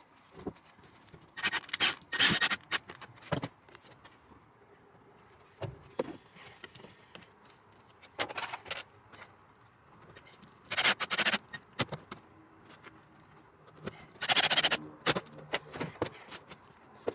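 Short bursts of scraping and scratching from work on plywood wall framing, about six of them a few seconds apart.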